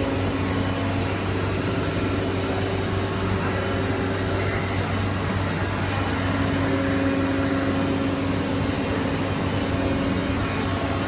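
Steady drone of running shop machinery, a low hum with several held tones over an even background noise and no change through the stretch.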